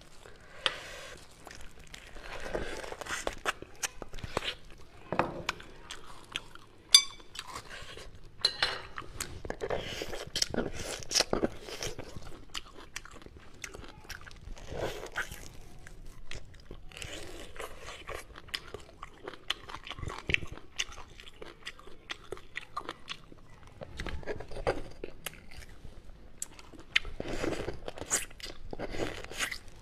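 Close-miked mouth sounds of eating beef bone marrow straight from the cooked bone: chewing and sucking, with many short wet clicks and smacks. One sharp click comes about seven seconds in.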